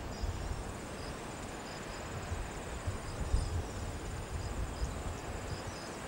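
Insects trilling: a steady high-pitched buzz with short chirps repeating at irregular intervals, over an uneven low rumble.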